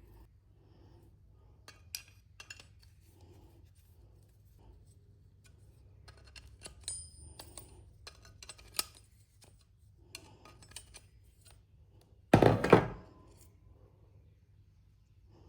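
Small clicks, taps and clinks of tools and metal parts being handled while an angle grinder is taken apart, with one loud knock and short clatter about twelve seconds in.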